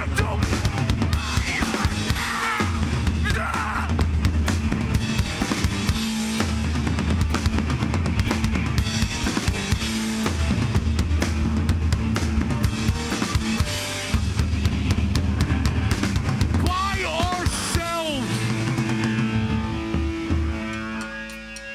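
Hardcore band playing live: heavy drum-kit beat with bass drum and snare, distorted guitars and shouted vocals. Near the end the drums drop out and a few held guitar notes ring on and fade.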